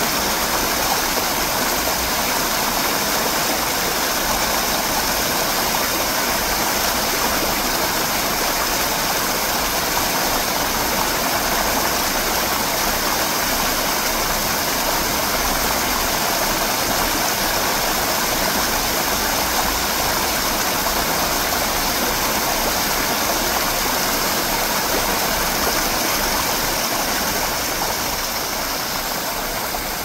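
Stream water rushing over rocks, a steady even rush that eases slightly near the end.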